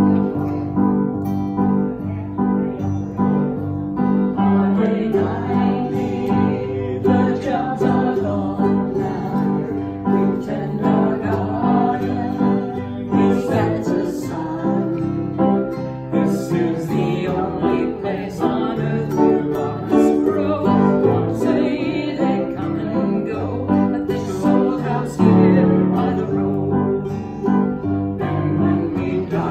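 Two acoustic guitars, a ukulele and a piano playing a song together, with voices singing along.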